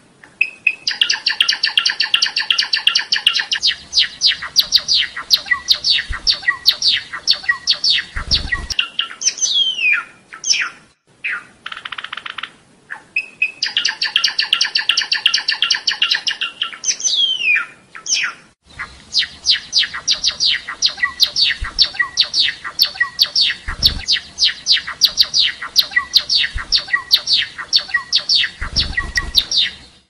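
Java sparrow singing: long runs of rapid clicking chirps, several a second, broken by a few sliding whistled notes. The same song phrase comes round twice.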